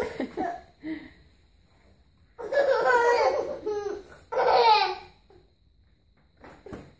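Babies laughing in bursts: a short laugh at the start, then two longer peals of giggling about two and a half and four and a half seconds in, fading to quiet near the end.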